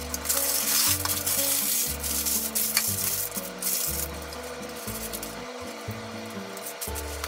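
Paper and paper towels rustling and crinkling as food is unwrapped and handled by hand, loudest in the first four seconds and softer after.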